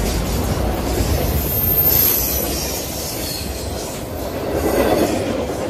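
Freight train of autorack cars rolling past at close range: a steady rumble and clatter of steel wheels on the rail, with a brief high squeal about two seconds in and a swell in loudness near the end.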